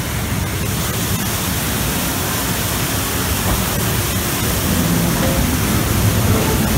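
Waterfall splashing beside a moving mine-train ride car: a steady rush of falling water with the car's low rumble underneath, growing slightly louder toward the end.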